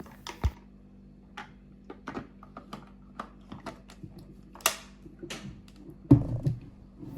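Scattered light clicks and taps from handling a steam vacuum cleaner, with a brief hiss a little past the middle and a heavier thump near the end.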